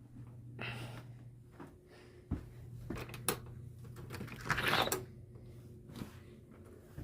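Handling noises of a person moving about indoors. There are scattered knocks and clicks, a brief rustle lasting about half a second a little past the middle, and a steady low hum underneath.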